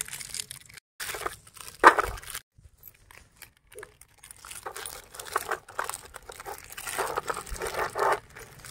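Plastic biscuit packets crinkling and being torn open, in irregular bursts with short breaks.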